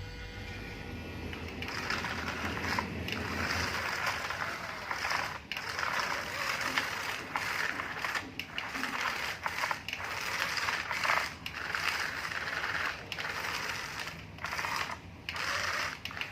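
RC toy construction vehicles working dirt: small gear motors grinding and soil crunching in uneven stretches, with short breaks every second or so.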